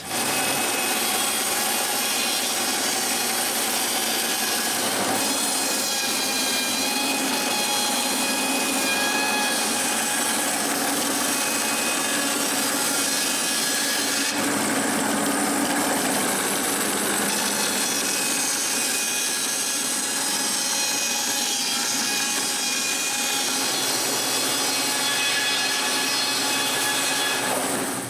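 Bandsaw with a wide blade ripping through a birch log, running steadily under load as the corners are sawn off the log.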